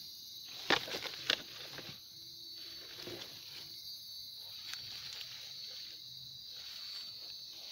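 Steady high-pitched chorus of night insects, with two sharp clicks about a second in.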